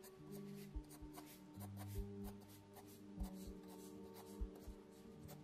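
Mechanical pencil scratching on sketchbook paper in short, quick shading strokes. The scratching is faint and comes over quiet background music of held low notes.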